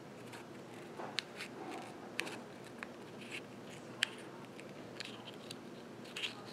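Small curved scissors snipping a slit in the leathery shell of a ball python egg: several quiet, sharp snips about a second apart.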